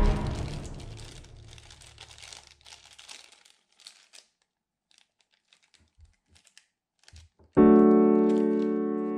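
Piano background music dies away, followed by faint crinkling and light clicks of a small plastic bag being opened and handled. About three-quarters of the way in, a loud sustained piano chord sounds and slowly decays.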